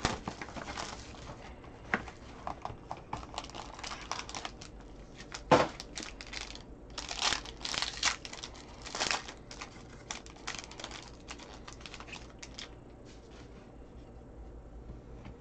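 Trading card box and pack wrapper torn open by hand: irregular crinkling and tearing, with a sharp snap about five and a half seconds in. The handling goes quieter near the end.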